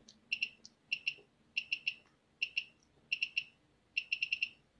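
Short high electronic beeps from a UFD900 ultrasonic flaw detector, one per step of its rotary knob as the sound velocity setting is turned up. They come in quick runs of one to five beeps with short pauses between.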